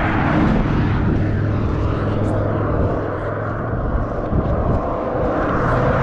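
Cars passing close by on the road, a steady engine drone with tyre noise that eases a little around the middle and builds again near the end.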